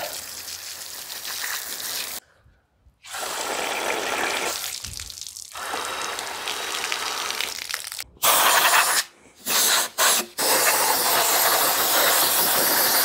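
Water from a garden-hose spray nozzle jetting onto and into a bare Pontiac 400 cast-iron engine block, rinsing the cleaner out of its passages. It comes in several hissing bursts, with short breaks about two seconds in and twice more near the nine- and ten-second marks.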